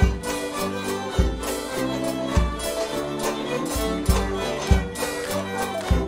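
English ceilidh band playing a dance tune live: fiddle lead over bass saxophone, banjo and melodeon, driven by a steady bass drum beat about every 0.6 s with cymbal strokes.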